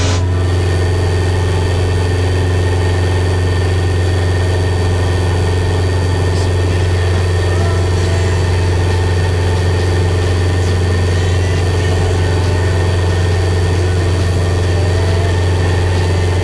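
Mooney M20J's four-cylinder Lycoming IO-360 engine and propeller at full climb power just after takeoff: a steady low drone that holds one pitch without change.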